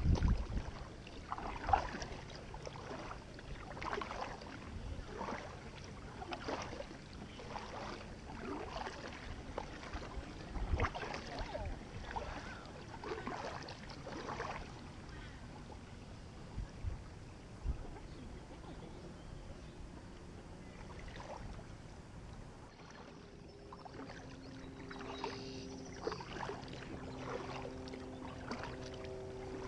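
Kayak paddling on calm water: a double-bladed Aqua-Bound paddle dips and pulls on alternate sides, giving a soft splash and drip about every second or so.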